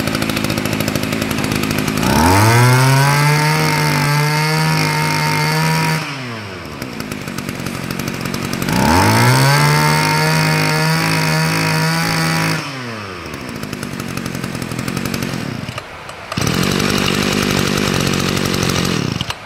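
Tanaka two-stroke brush cutter engine running: revved quickly to full speed twice, held there about four seconds each time, then dropping back to a rough idle, with a steadier run near the end. Loud rain hisses behind it.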